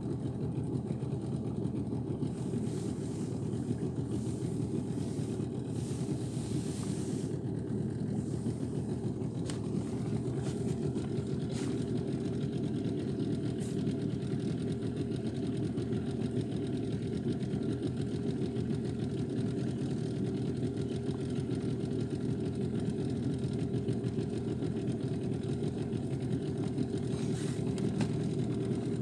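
Small boat's motor running steadily at low speed, a dense low drone with a rapid even pulse as the boat moves along.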